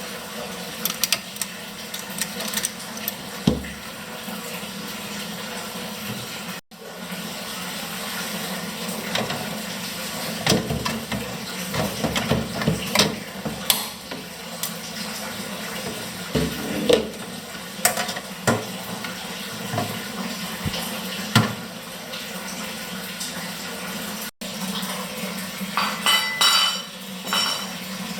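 Scattered clinks and knocks of hard objects being handled, over a steady hiss, with a quick run of sharper ringing clinks near the end.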